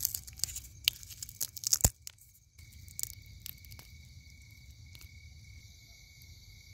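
Charred, brittle shell of a barbecued giant river prawn cracking and crinkling as it is peeled off by hand: a quick run of sharp crackles over the first two seconds. After that, crickets chirr steadily.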